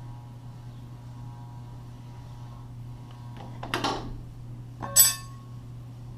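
A sliding door being worked up and out of its track, catching: a short scraping knock, then about a second later a sharp metallic clink that rings briefly.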